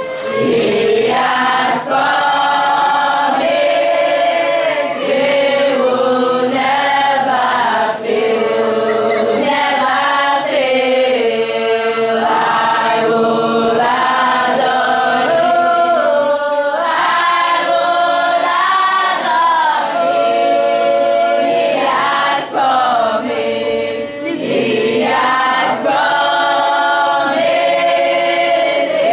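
A group of schoolchildren, boys and girls, singing a song together without instruments.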